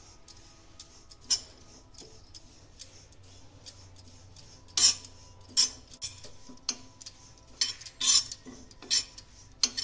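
A spatula stirring rolled oats as they dry-roast in a kadhai, the dry oats shifting with short clinks and scrapes of the spatula against the pan. A single clink comes about a second in, then roughly one a second through the second half.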